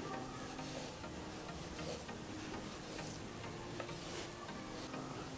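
Kitchen knife scoring raw pork on a plastic cutting board: faint, irregular ticks as the blade meets the board with each shallow cut.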